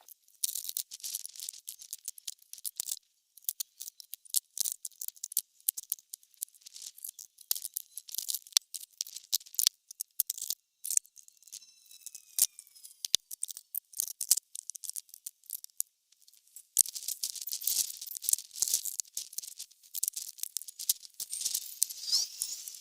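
Tools and hardware rattling and clicking as they are handled and loaded into storage boxes. The clatter comes in scattered bursts with short pauses and grows busier and more continuous in the last few seconds.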